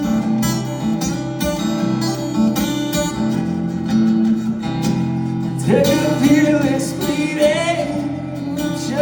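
Acoustic guitar playing the intro of a song. A singing voice comes in about six seconds in.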